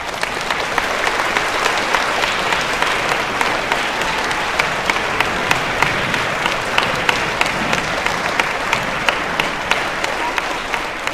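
Audience applauding: a dense, steady spread of many hands clapping, with single sharp claps standing out.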